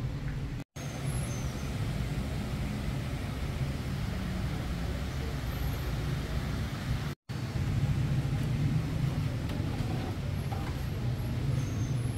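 Steady low background rumble, broken twice by a split second of complete silence.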